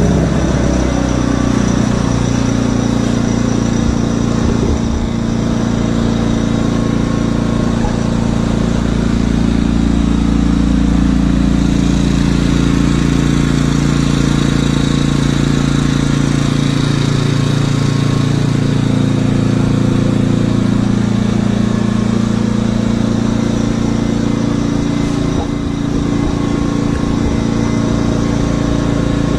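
WEN 56200i 2000-watt inverter generator running at a steady speed, its pitch shifting a little around the middle.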